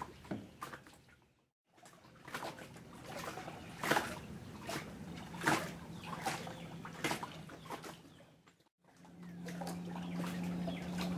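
Lake water lapping and splashing, with irregular wet slaps and drips. The sound breaks off briefly twice, and a steady low hum comes in from about nine seconds in.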